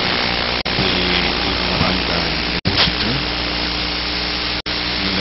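Steady din of a dense crowd, with faint pitched tones low underneath. The sound cuts out for an instant twice, at even two-second intervals.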